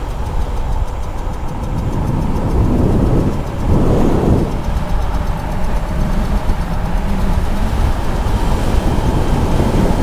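Wind rush and tyre noise from riding a Goat Power Power Goat V2 electric moped at speed, with a faint steady whine under it. The rushing swells about four seconds in.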